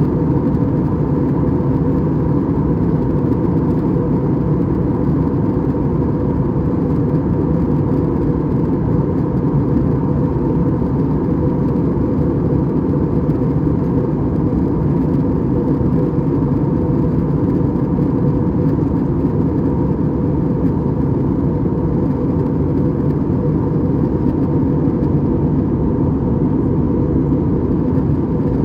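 Steady in-flight cabin noise of an Airbus A320-200, a constant roar of engines and airflow with a faint steady hum, heard from a window seat.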